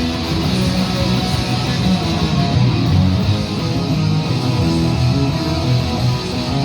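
Guitar played continuously in a rock style, chords strummed without a break at a steady, loud level.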